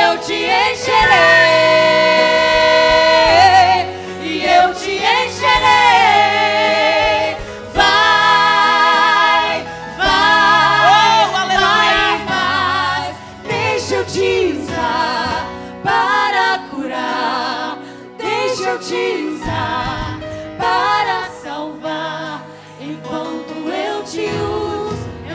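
Slow gospel worship singing with long held notes and vibrato, over a steady instrumental backing.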